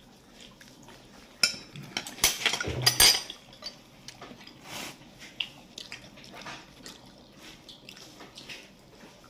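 Dishes and cutlery clinking and knocking at a dinner table, with a cluster of louder, sharper clinks between about two and three seconds in.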